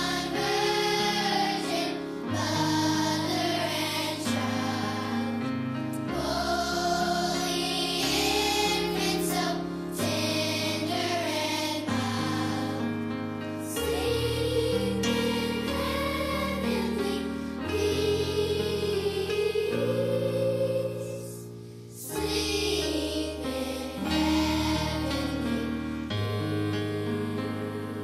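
Choir singing a slow Christmas song with live instrumental accompaniment, in long held chords over a stepping bass line.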